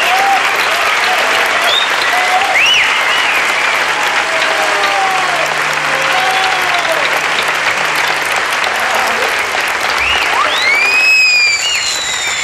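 Audience applauding, with cheering voices rising and falling over the clapping. Near the end a high gliding tone rises and falls over it.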